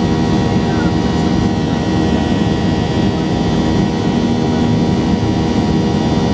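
Boeing 737-800 in flight, heard from a window seat inside the cabin: its CFM56-7B turbofan engines and the airflow make a steady, loud drone. A deep hum sits under several steady whining tones.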